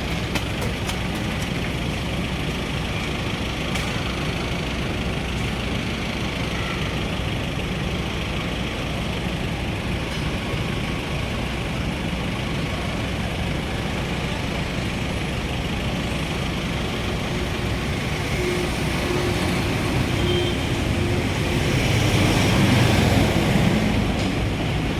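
Steady city road traffic noise, with a louder vehicle rumbling past about 22 seconds in.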